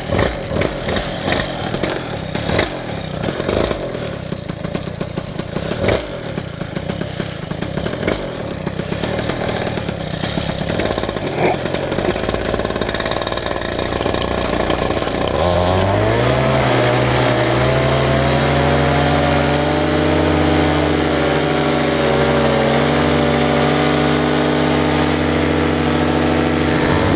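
Paramotor engine running roughly at low throttle. About halfway through it revs up with a rising pitch, then holds a steady high-power drone for the takeoff run.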